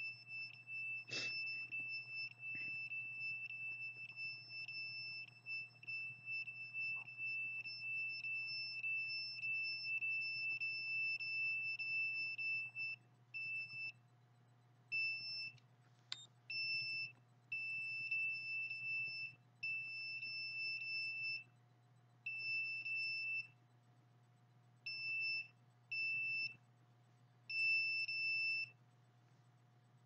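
Handheld electromagnetic-field meter sounding a high-pitched alarm tone as it is held against the body: one steady tone for the first half, then breaking into on-off beeps of uneven length as the meter is moved, which she takes as her chest and heart being targeted. A knock from handling the meter about a second in.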